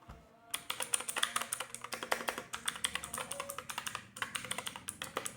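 Fast typing on an Ant Esports MK3400 Pro V3 mechanical keyboard with clicky blue switches: a dense run of sharp key clicks starting about half a second in, with a brief pause near the end.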